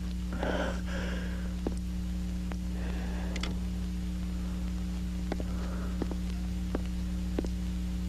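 Steady low electrical hum, with faint rustles near the start and about three seconds in and a few scattered soft clicks.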